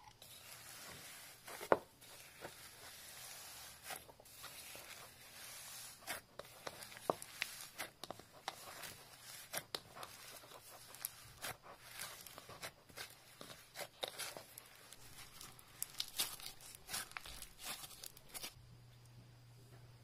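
Hands kneading and squeezing slime loaded with foam microbeads, the beads giving a dense, irregular crackle and crunch with sharper clicks, stopping shortly before the end.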